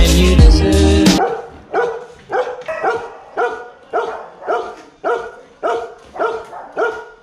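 Background music that stops about a second in, followed by a dog barking repeatedly at a steady pace of about two barks a second.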